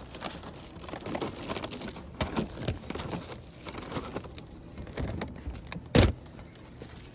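Rustling and crackling of branches, leaves and fruit bags as jujubes are picked by hand, with one sharp knock about six seconds in.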